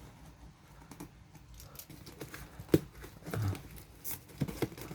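Packing paper rustling and crinkling as it is pulled out of a cardboard box, with scattered small clicks and knocks and one sharp click about two and a half seconds in.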